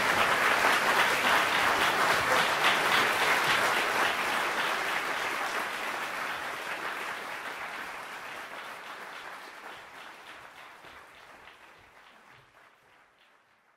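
Audience applause from a live music recording, a dense crackle of clapping that fades out steadily to near silence by the end.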